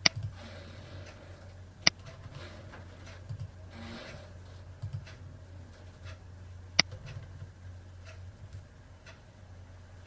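Computer mouse clicks: three sharp clicks, one right at the start, one about two seconds in and one about seven seconds in, with a few fainter ticks between them over a low steady hum.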